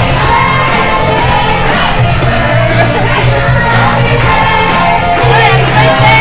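Loud music with singing and a steady beat of about two strikes a second, over crowd voices.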